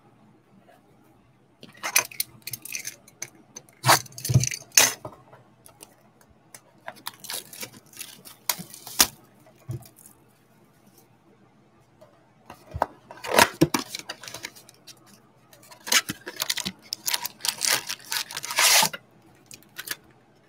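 Trading-card packaging torn and crinkled by hand in irregular crackly bursts as a blaster box and its foil packs are opened. The longest rip comes near the end, when a foil pack is torn open and the cards are pulled out.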